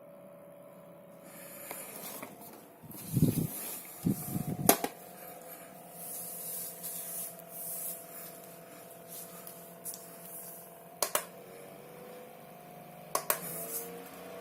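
Handheld USB mini fan running with a steady motor whine and a hiss of air. Sharp clicks come about five, eleven and thirteen seconds in; the whine steps up in pitch after the first and slides down after the last, as the fan's speed changes with the button presses. A handling thump comes just before the first click.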